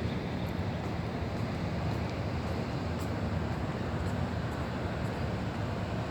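Steady low rumbling noise, even throughout, with faint scattered ticks above it.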